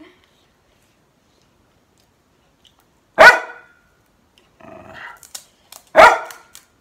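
A dog barking twice, one loud single bark about three seconds in and another near the end. The dog is upset and barking because it wants the food.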